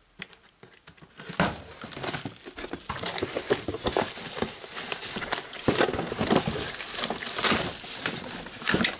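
Cardboard carton flaps and bubble wrap rustling and crinkling, with small knocks and clicks, as a bubble-wrapped box is handled and lifted out of a shipping box; it starts about a second and a half in and keeps on.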